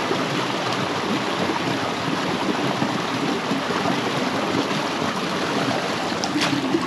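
Creek water flowing steadily over rocks, a constant rushing babble, with a single brief click near the end.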